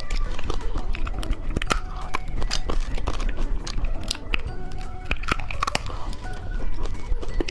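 Candy being bitten and crunched close to the microphone, many sharp irregular crunches, over light background music.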